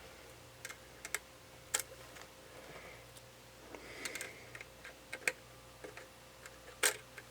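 Faint, irregular small clicks and taps of a Nikon D5500 camera body and its parts being handled during reassembly, with a soft rustle about four seconds in.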